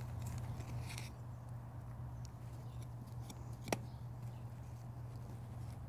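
Faint rustling and scraping of composted wood chips and soil being scooped by a gloved hand out of a greywater outlet's mulch shield, with one sharp click a little past halfway. A steady low hum runs underneath.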